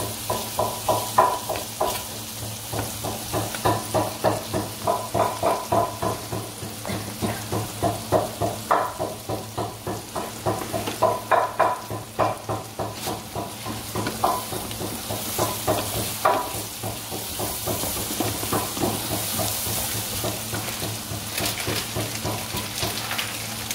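Chopped onions sizzling as they fry in oil in a kadai, while a plastic spatula stirs and scrapes through them in quick repeated strokes. The stirring thins out in the last several seconds, leaving mostly the sizzle.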